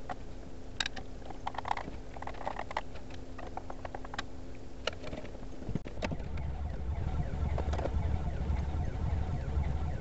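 Scattered clicks and taps of hand tools and electrical hardware being handled during conduit and light-fixture installation, over a faint steady hum. About six seconds in, the hum stops and a low rumble builds.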